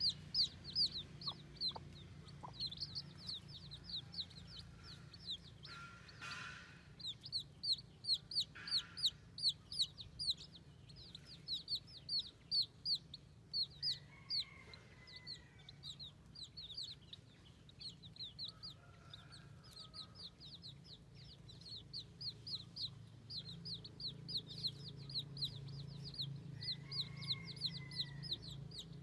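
Baby chicks peeping nonstop: short, high, downward-sliding peeps, several a second, over a steady low hum, with a few lower calls now and then.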